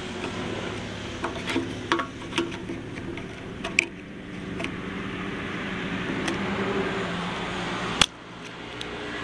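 A motor running with a steady hum, with scattered light clicks and clinks and one sharp click about eight seconds in.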